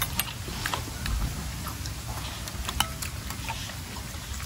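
Eating sounds: scattered light clicks and clinks of a spoon in a glass dipping-sauce bowl, one sharper clink with a short ring a little under three seconds in, over a low steady rumble.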